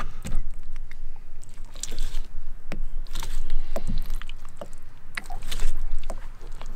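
Wet, irregular squelching, slapping and clicking as a raw giant Pacific octopus is handled and cut into sections with a knife.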